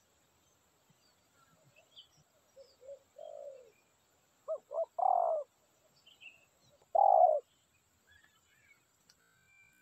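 Spotted dove cooing in short phrases: a low coo about three seconds in, two quick notes and a longer coo around five seconds, and the loudest coo around seven seconds. Faint high chirps of small birds sound between the coos.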